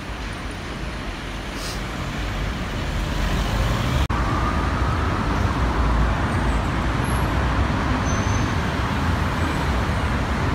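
City street traffic: a steady wash of road noise with a low rumble, growing louder over the first few seconds, with a brief break about four seconds in.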